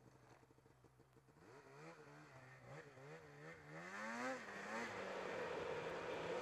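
Snowmobile engine, an 858 in its break-in period, running at low revs with its pitch rising and falling several times on the throttle, climbing to a brief higher rev about four seconds in, then settling to a steady speed as track noise builds.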